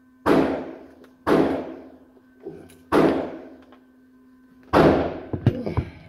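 Four gunshots at uneven intervals of roughly one to two seconds, each with a booming echo that dies away in an indoor shooting range. A steady hum runs underneath, and a flurry of close clicks and knocks comes near the end.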